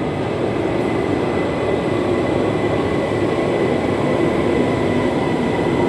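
New light rail train of the Shah Alam line at the platform, giving a steady rumble with a thin constant high whine over it.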